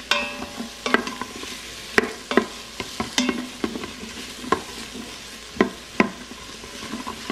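Metal spoon stirring diced onion and garlic in an Instant Pot's stainless-steel inner pot on sauté mode, clinking and scraping against the pot about once or twice a second, the first clink ringing briefly. Under it the onions sizzle steadily in hot oil.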